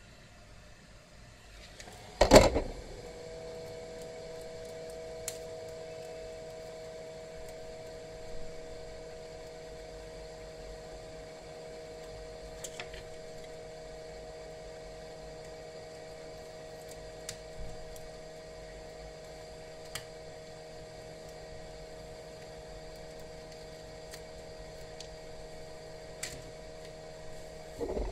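A small electric motor hums steadily, switched on with a loud click about two seconds in and off with a click near the end, with a few faint taps in between.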